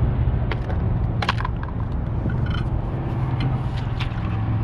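Hollow knocks and clatter of a kayak paddle and plastic hull bumping against concrete steps, several separate sharp knocks, over a steady low rumble.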